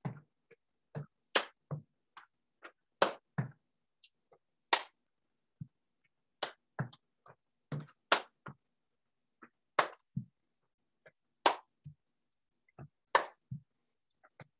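Sneakered feet thumping and knocking on the floor during aerobic stepping, in an uneven rhythm of about two a second, with dead silence between the steps.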